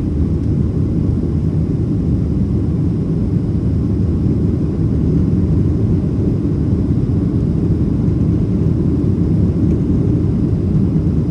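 Boeing 737-700 CFM56 jet engines running, heard inside the passenger cabin as a loud, steady low rumble with a faint high whine above it.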